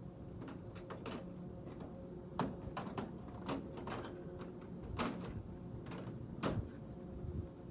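Hand tools and metal parts clicking and knocking during brake work on a truck: about seven sharp clicks and knocks at irregular intervals. A steady low hum runs underneath.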